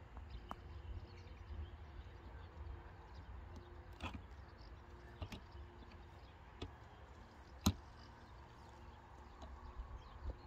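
Quiet outdoor railway-side ambience: a steady low rumble with a faint hum, faint high chirps and scattered short clicks, the sharpest click about three-quarters of the way through.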